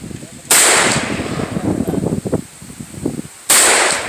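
Two single gunshots at a shooting range, about three seconds apart, each a sharp crack that rings out and fades over about half a second.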